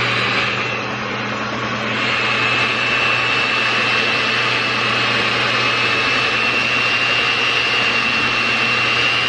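Electric kitchen mixer running steadily at speed, a constant motor hum under a high whine, beating cookie dough of cookie mix, softened butter and egg. The whine grows a little louder about two seconds in.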